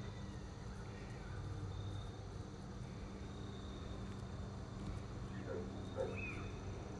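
Faint backyard ambience: insects chirping steadily over a low steady hum, with a few faint bird-like chirps near the end.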